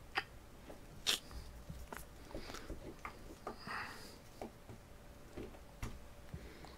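Faint clicks and rustles of a plastic action figure and its toy sword being handled, as the sword is worked into the figure's hand; two sharper clicks come in the first second or so.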